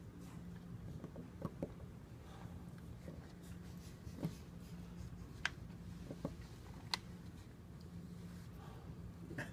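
Seal-carving knife cutting a side inscription into a stone seal: faint scraping with sharp little clicks at irregular moments as the blade chips out the strokes.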